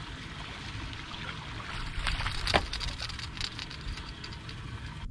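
Steady wind rumble on the microphone of a boat-mounted camera. About two seconds in comes a short clatter of clicks and knocks, the loudest a sharp knock about halfway through, as an angler swings the rod up to set the hook.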